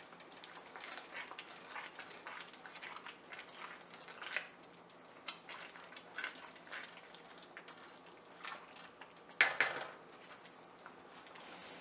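Silicone spatula stirring a thick, simmering carrot halwa of milk and khoya in a large pan: irregular soft scrapes and squelches, with one louder clack about nine and a half seconds in.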